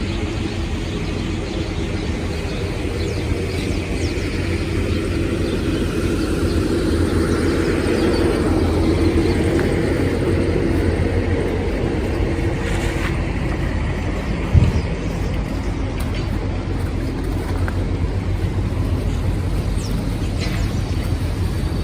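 City street traffic, with vehicles running and passing in a steady low rumble that swells for a few seconds midway. A single short knock comes about two-thirds of the way through.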